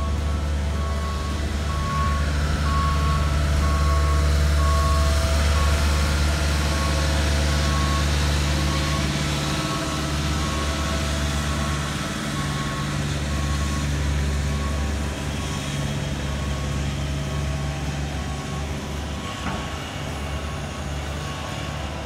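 Diesel engines of asphalt paving machinery (paver and dump truck) running steadily at a low pitch, with a backup alarm beeping over them at regular intervals.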